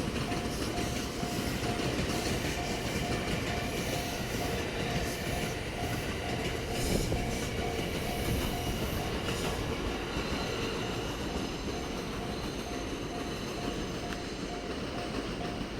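A train running past over a level crossing, a steady rumble and rattle of wheels on the rails, while the crossing's warning bell dings over and over at an even pace.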